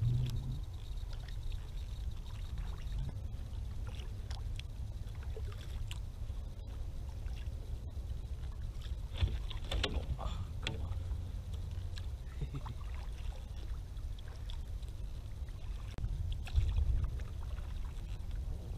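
A kayak moving through the water, with water splashing and lapping at the hull over a steady low rumble, and a few louder splashes about halfway through.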